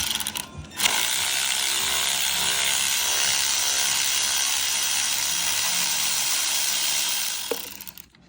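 Cordless power tool unscrewing a 10 mm bolt on a Miata transmission: a brief burst, then about six and a half seconds of steady buzzing, ratchet-like running that fades near the end.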